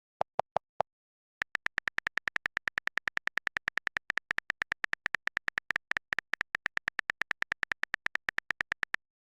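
Phone text-to-speech voice (Siri) stuttering out a rapid train of identical clipped syllable blips, about eight a second, like a machine gun, while reading a long string of repeated characters. Four separate blips come first, then the steady run starts about a second and a half in and stops just before the end.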